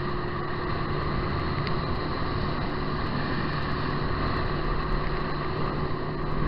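Boat motor running steadily: a constant engine hum over an even rushing noise.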